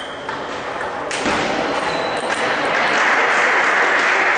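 A table tennis ball gives a sharp click about a second in, then spectators applaud and the applause grows louder as the point ends.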